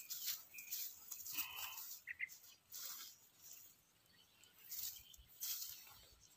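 Faint scraping and rustling of charred sticks against sand and ash as they are handled at a dead campfire, with a few short bird chirps.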